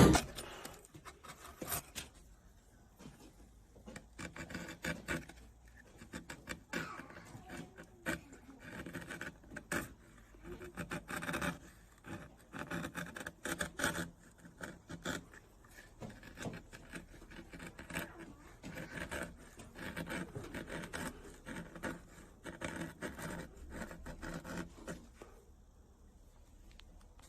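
Hand tool scraping and cutting into wood in quick repeated strokes, coming in bursts of a few seconds with short pauses and dying away near the end.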